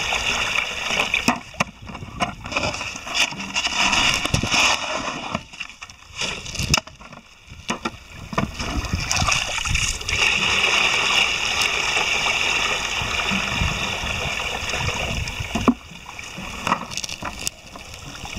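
Water pouring out of a plastic canister and rushing over gravel down a small sluice box, with a steady splashing flow. The flow drops away for a couple of seconds about a third of the way through and then picks up again, with scattered knocks of stones and plastic.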